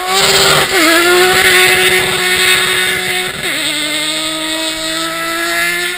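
Ice-racing car's engine running hard at high revs as the car passes close and slides away on the ice track. Its pitch dips briefly about a second in and again midway, then holds steady a little lower.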